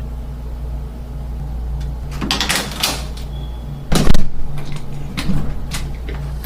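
A surface-mount door lock being worked by hand: metal clicks and rattles, a brief high squeak, then a loud knock about four seconds in, followed by a few lighter clicks.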